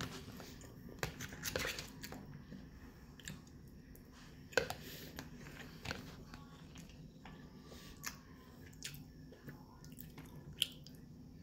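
A metal spoon scraping and clicking against a plastic food container, with chewing of rice, beans and corn between scoops. The clicks are scattered and sharp, the loudest about four and a half seconds in.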